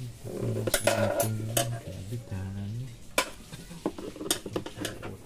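Sharp clicks, knocks and scraping of metal and plastic parts as hands work at the emptied battery tray in a car's engine bay. A low hum runs under it for about the first three seconds.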